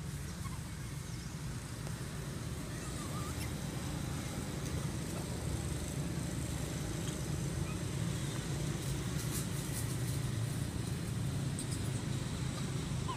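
Steady low outdoor background rumble, with a few faint short chirps and a brief patch of faint clicks partway through.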